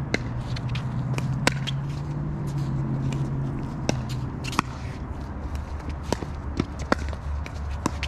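Pickleball paddles striking the hollow plastic ball during a doubles rally: a series of sharp pops about one to two seconds apart, with sneakers shuffling on the hard court, over a steady low hum.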